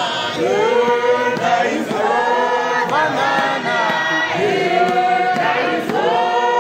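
Church congregation singing a hymn together, men's and women's voices, without a break.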